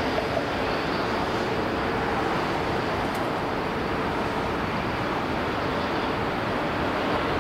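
Jet airliner engines heard as a steady, even rumble that neither rises nor falls, from a plane coming in to land.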